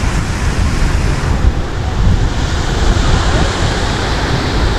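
Small waves washing onto a sandy beach, with wind blowing across the microphone in a steady noise.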